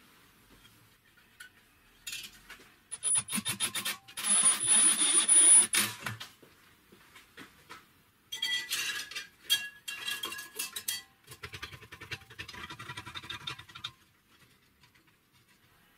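Steel band saw blade scraping and rattling against the metal wheels and frame as it is threaded by hand onto a homemade band saw built from old car hubs. It comes in several rasping bursts, the loudest a few seconds in, with a light metallic ring.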